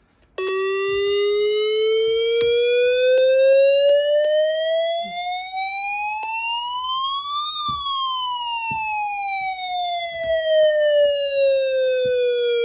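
Midland WR10 weather radio sounding its siren alert: a single siren tone that starts suddenly about half a second in. It rises slowly in pitch for about seven seconds, then falls slowly again.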